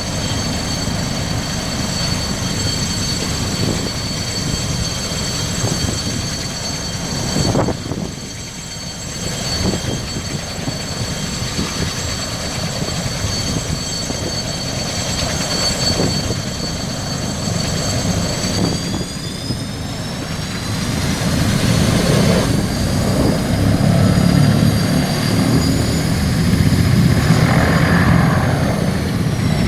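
Large transport helicopter running on the ground: a steady high turbine whine over the heavy beat of the rotor. About two-thirds of the way through the whine rises in pitch and the whole sound grows louder as the engines are brought up to power for takeoff.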